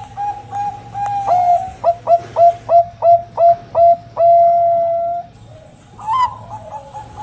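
Perkutut Bangkok (Thai-bred zebra dove) cooing: a run of short soft notes, then a faster series of louder notes that each dip in pitch, ending in one long held end note. After a short pause the soft notes start again.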